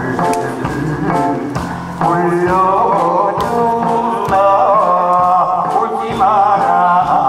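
A man singing a Korean trot song into a microphone over instrumental accompaniment. The first two seconds are instrumental only, then his voice comes in, held notes wavering with vibrato.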